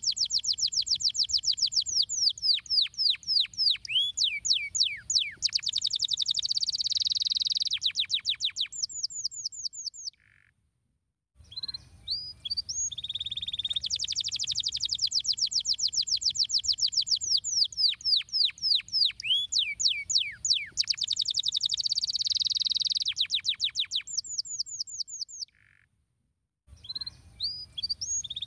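Domestic canary singing a long song of fast trills and sweeping whistles. The song breaks off twice for about a second and starts over the same way each time.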